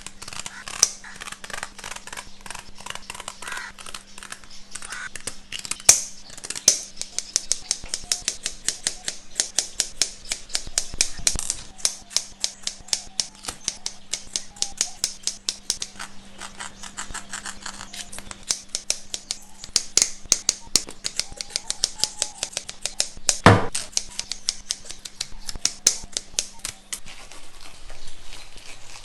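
A knife scaling and cleaning a fish: quick repeated scraping strokes, several a second, with one sharp knock about three-quarters of the way through. A steady low hum runs underneath and stops near the end.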